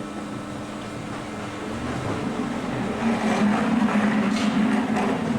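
Cram-A-Lot HX-72-W baler and its conveyor running: a steady machine hum that grows louder between about two and three seconds in, with rattling and knocks over it.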